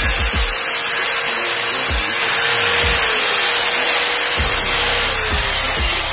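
Electric mitre saw running with a loud, steady rushing noise; a tone within it drops in pitch after about three seconds.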